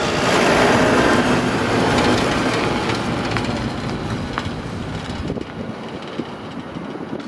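Boeing 767-400ER airliner's jet engines on final approach: a steady, loud rushing roar, strongest in the first couple of seconds and slowly easing off.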